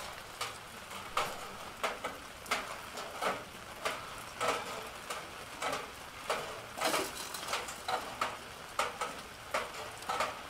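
Footsteps on gritty dirt ground at a steady walking pace, about three steps every two seconds, each a short scuff or crunch, over a faint steady hiss.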